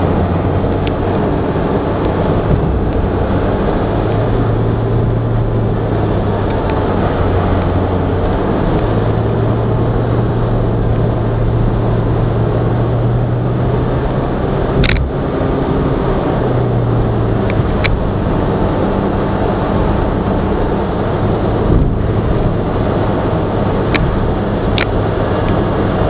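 Car interior noise at highway speed: a steady engine drone and tyre-on-road rumble, the drone shifting slightly in pitch a few times. A few brief clicks break through around the middle and near the end.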